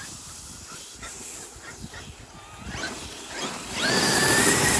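Electric RC monster truck coming up fast about three and a half seconds in: its brushless motor whine rises in pitch and then holds steady, over a loud rushing scrape from the tyres and the rake dragged behind it on the pavement.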